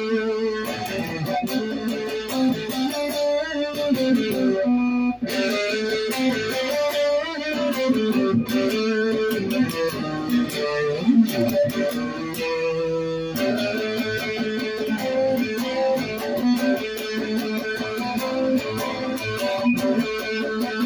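Stratocaster-style electric guitar playing a continuous melodic line of single notes and chords, with a brief break about five seconds in.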